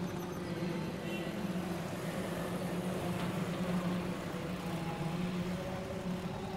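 Steady low droning hum with fainter higher tones held over it, unbroken throughout.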